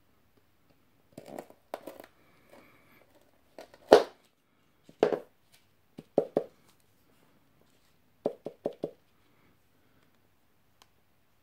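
Plastic protein-bar wrapper crinkling and a crunchy chocolate-coated vegan brownie protein bar being broken apart: a series of sharp crackles and cracks, the loudest about four seconds in, and four quick cracks near the end.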